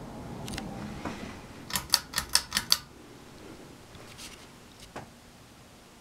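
Hunter Augusta ceiling fan running with a low, steady hum. A little under two seconds in, a quick run of six sharp clicks comes from nearby.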